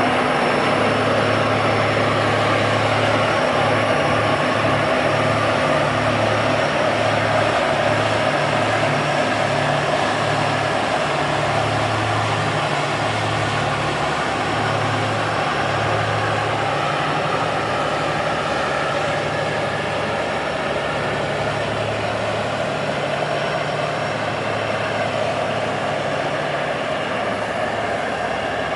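Diesel engine of the tugboat Island Chief running under load as it pushes a loaded barge, with a low throb and a faint high turbocharger whine over it, getting gradually a little quieter.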